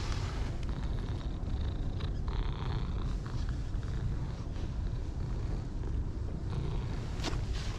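Orange tabby cat purring steadily up close while being stroked, a sign it is content with the petting.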